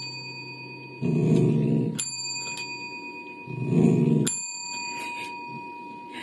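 A dachshund makes two short vocal sounds, each followed by a ding of a chrome desk service bell that rings on clearly, about two seconds apart.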